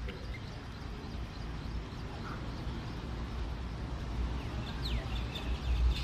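Birds calling: short chirps and a few quick rising and falling calls, coming thickest near the end, over a steady low rumble.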